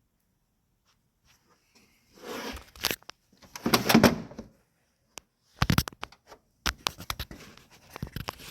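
Handling noise: rustles and scuffs mixed with sharp clicks and knocks, loudest about four seconds in, as tools and parts are handled in the engine bay.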